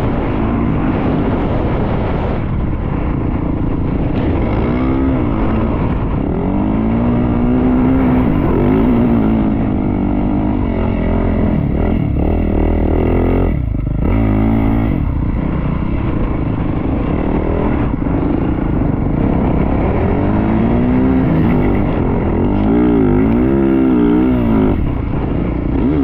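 Yamaha YZ450F dirt bike's single-cylinder four-stroke engine, ridden and revving up and down over and over, with a brief let-off about halfway through. Wind rushes over the microphone underneath.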